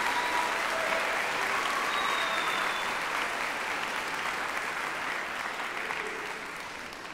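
Audience applauding, a steady clapping that slowly dies down.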